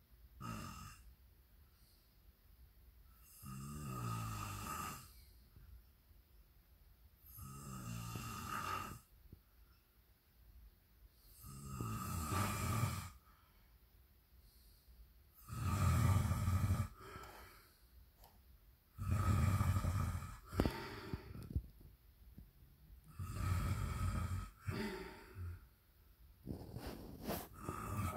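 A person snoring loudly, one snore about every four seconds.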